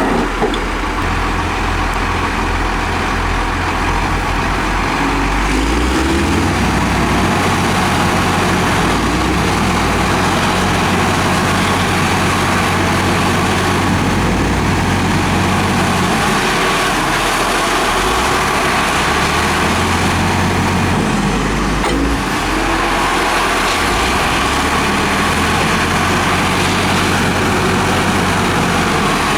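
Heavy diesel machinery running continuously, its low engine note shifting several times as the load and revs change.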